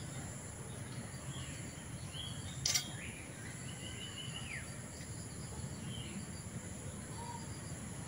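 Garden ambience: a steady high-pitched insect drone with a few short bird calls. One sharp knock about two and a half seconds in, as the steel machete blade is laid down on the wooden bench.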